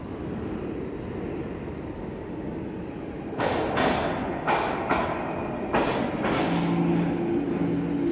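An R46 subway train pulls into an underground station. Its rumble builds, and from about three seconds in the wheels clatter over the track in several loud bursts. Near the end a steady low hum sets in as the cars roll past the platform.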